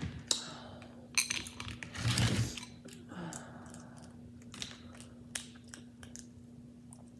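Crab shell cracking and clicking as the meat is picked out by hand, heard close up: sharp snaps, a louder crunching cluster about two seconds in, then scattered small ticks.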